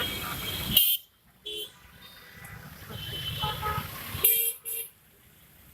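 Vehicle horns sounding in traffic: a short honk about a second and a half in and a quick double honk near the end, over steady traffic.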